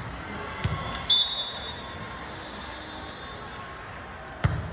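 A ball thumping on a gym court, a few sharp hits with the hall's echo, the strongest near the end. A short high whistle blast about a second in is the loudest sound.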